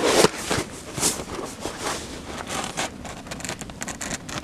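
Cardboard burning fiercely in a metal fire drum: a steady rush of flame with frequent crackles and pops.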